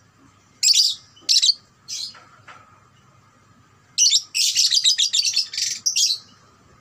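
Young Fischer's lovebird calling: three short shrill chirps, then about four seconds in a fast chattering run of rapid repeated notes, the long 'ngekek' trill, lasting about two seconds.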